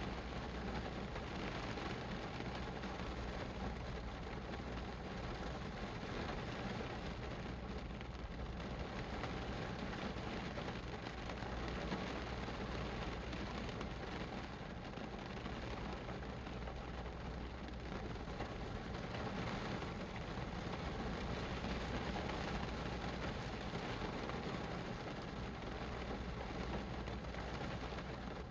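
Steady rain falling, a continuous even hiss with a low rumble underneath.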